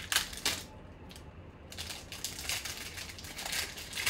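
Foil wrapper of a 2020 Bowman Chrome baseball card pack crinkling and tearing as it is ripped open by hand, in repeated bursts, loudest near the start.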